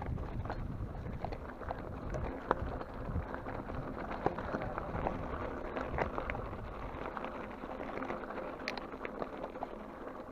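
Mountain bike rolling over a loose, rocky gravel trail: tyres crunching on stones, with many scattered clicks and rattles from gravel and the bike over a low rumble that eases a little in the second half.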